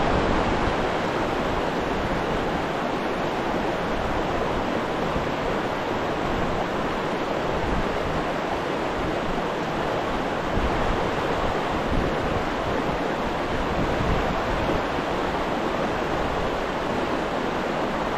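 Stream water rushing steadily, with wind rumbling on the microphone.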